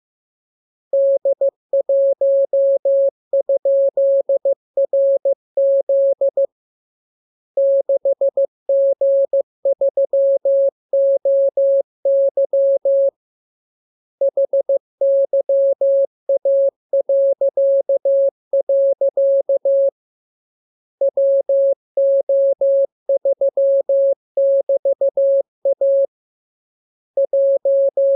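Morse code practice tone: a single clean, steady-pitched beep keyed on and off into dots and dashes, sent as runs of characters with a pause of about a second between runs.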